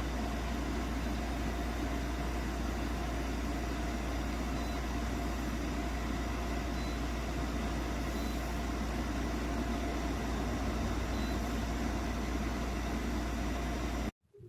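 Portable air conditioner running steadily, its compressor and fan giving a constant low hum with a rushing of air, until it cuts off suddenly near the end.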